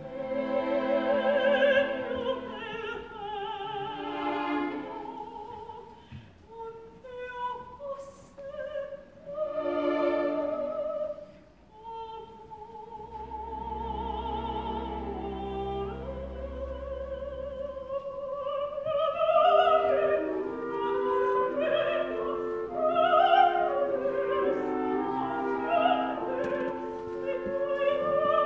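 Live opera duet: a mezzo-soprano and a soprano sing with wide vibrato over orchestral accompaniment. Near the middle a long note is held over a low sustained orchestral tone. After that the two voices sing together in overlapping lines.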